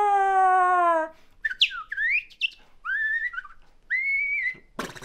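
A man doing mouth sound effects: a loud voiced call through cupped hands that slowly falls in pitch and stops about a second in, then a run of quick swooping whistles like bird calls and two held whistled notes.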